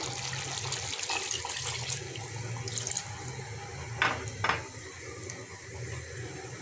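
Water being poured into a metal pot of simmering chicken and potato curry for about three seconds, then two sharp knocks about half a second apart.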